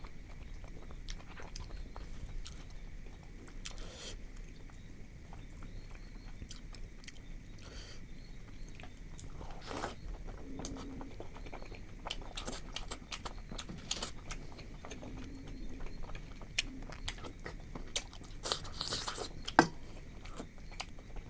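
A person chewing and eating food close to the microphone, with wet mouth sounds and scattered small clicks and smacks; one sharper click near the end.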